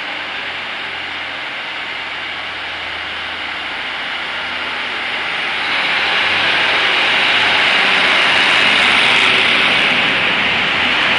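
Class 156 Super Sprinter diesel multiple unit running along the platform with a low engine hum, then growing louder from about five seconds in as the carriages pass close by.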